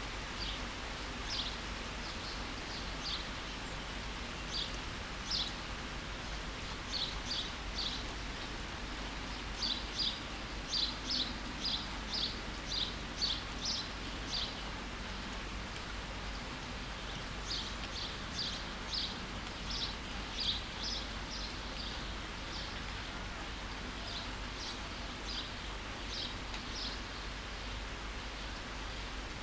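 Steady rain hiss with a bird giving short, high chirps over it, in quick runs of several notes with pauses between the runs.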